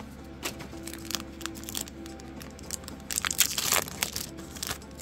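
Foil Pokémon TCG booster pack wrapper being torn open and crinkled by hand, a run of crackles that is busiest about three to four seconds in.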